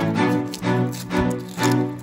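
Background instrumental music with a steady beat, about two notes a second.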